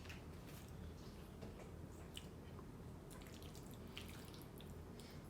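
Faint wet mouth sounds of eating: scattered small clicks and smacks over a low steady room hum.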